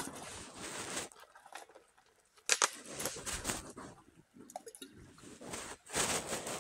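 Close rustling and scraping of the phone's microphone rubbing against a jacket as the phone is shifted in the hand, in irregular bursts, with a sharp click about two and a half seconds in.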